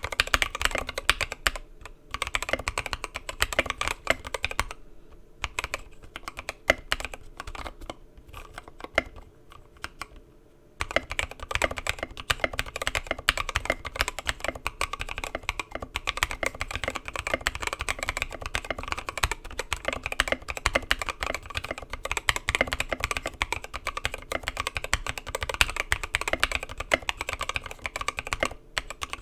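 Typing on a Mark 65 custom mechanical keyboard with an aluminum plate, fitted with Gateron Milky Yellow linear switches lubed with 205g0 and filmed, and lubed Durock screw-in stabilizers: a rapid run of keystroke clicks and clacks. The typing eases into short lulls about five and ten seconds in, then runs on fast and unbroken.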